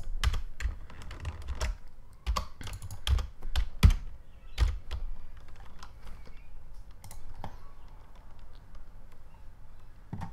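Computer keyboard keys tapped in quick, irregular clusters, busiest in the first half and sparser after that, as shortcut keys are pressed while modelling in Blender.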